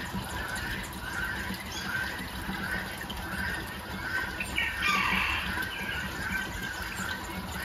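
Birds calling over and over, short squawky calls about twice a second. About five seconds in, a brief louder rush of water pouring from a watering can.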